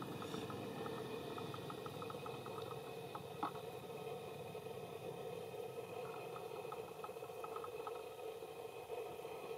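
Steady outdoor background hum with a faint rapid ticking call, about five ticks a second, that comes and goes, and a single sharp click about three and a half seconds in.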